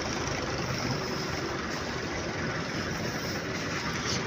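Diesel tractor engine running steadily at low revs.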